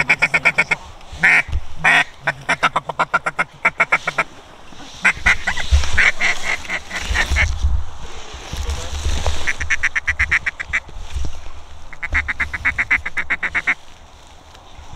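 Duck calls blown in rapid, evenly spaced strings of quacks, feeding-chuckle style at about ten notes a second, in several runs with short gaps between. A low rumble sits under the middle runs.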